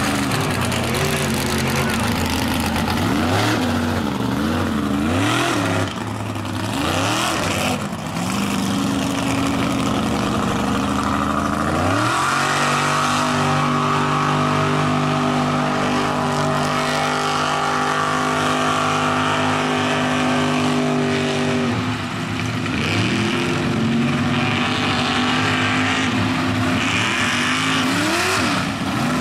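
Mud truck engines revving hard, rising and falling in pitch as the trucks run through a mud bog. About twelve seconds in, an engine climbs and is held at a steady high rev for about ten seconds, then drops back to uneven revving.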